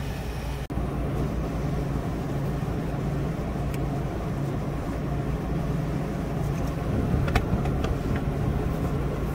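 Steady low hum of running refrigeration condensing units, with a few faint clicks from copper pipe fittings being handled.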